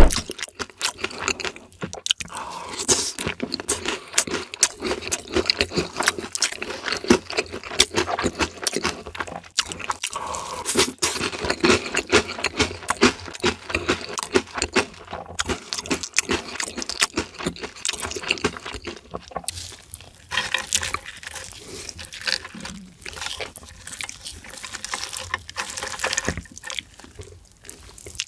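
Close-miked eating: a steady run of chewing and biting, with wet, sticky mouth sounds and many small irregular clicks.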